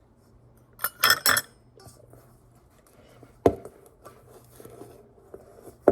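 A utensil clinking and knocking against a mixing bowl while cloud dough is stirred: a quick cluster of ringing clinks about a second in, one sharp knock midway, and soft scraping between.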